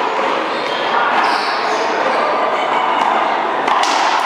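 Racquetball bouncing and being struck by a racquet in an echoing indoor court, with one sharp hit near the end, over steady background noise.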